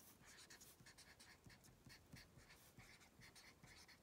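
Felt-tip marker writing on paper: a faint run of quick, short strokes of the tip across the sheet.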